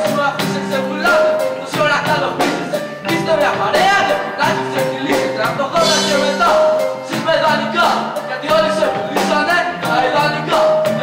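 Live hip-hop band music: a drum kit keeps a steady beat under electric bass, with voices over it.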